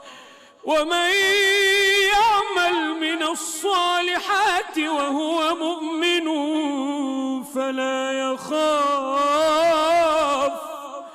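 A man chanting Quran recitation in a melodic, drawn-out style: long ornamented held notes whose pitch wavers and slides. The chant comes in about a second in, after a short breath pause, with two brief breaks later on.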